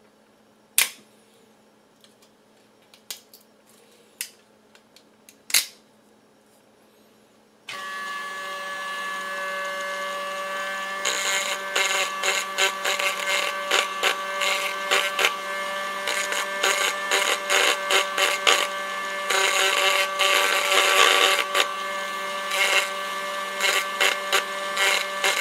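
A few sharp snaps as support material is broken off a 3D-printed plastic part by hand. About eight seconds in, a Dremel rotary tool starts with a steady high whine, then grinds against the printed plastic housing in short, rough strokes as it deburrs it.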